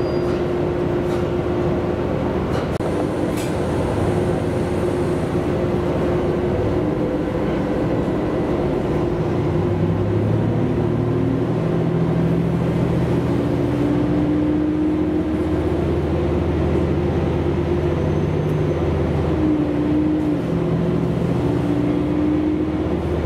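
Tosa Kuroshio Railway diesel railcar running, heard from inside the cabin: a steady rumble of engine and wheels on the rails, the engine's note shifting partway through.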